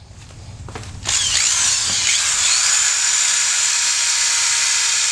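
Handheld power tool grinding the steel two-stroke header pipe clean, starting about a second in and running steadily until it cuts off suddenly.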